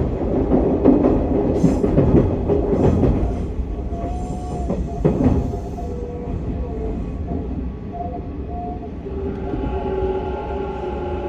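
Interior running sound of a Hanshin 1000 series electric train in motor car MoHa 1006: wheels rolling on the rails with rail-joint clicks. About halfway through the rolling noise eases and steady whining tones from the inverter-driven traction motors come through.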